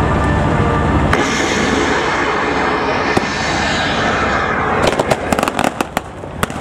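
Battlefield pyrotechnic charges simulating artillery support fire: a sharp bang about a second in, another near three seconds, then a rapid string of crackling pops near the end, over the steady low rumble of tracked armoured vehicle engines.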